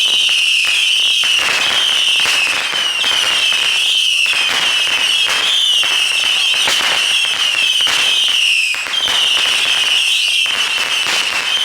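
Consumer fireworks going off at close range: a dense, continuous crackling of firecracker-like pops, with a steady high-pitched shrill, warbling tone over it.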